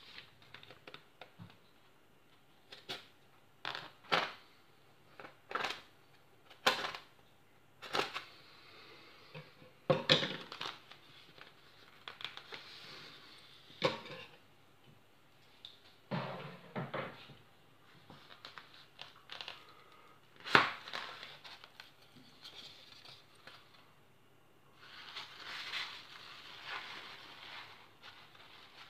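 Scissors cutting through the packing tape on a polystyrene shipping box: a string of sharp clicks, snips and knocks. Tissue paper rustles near the end as the lid comes off.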